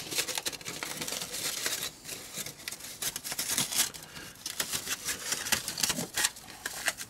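Hands working a superelevation strip under cork underlay on a model railway curve: a run of light, irregular scrapes, rustles and clicks.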